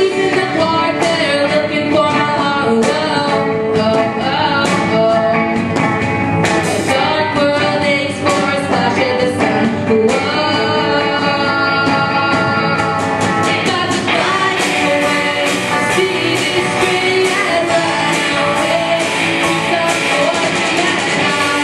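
Live band playing a rock song, with a singer over the band. About two-thirds of the way in the sound fills out with more bright, cymbal-like high end.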